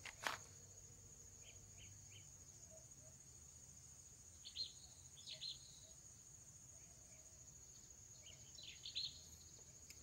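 Faint ambience of a steady, high-pitched insect trill, with a few short bird chirps scattered through and a single sharp click just after the start.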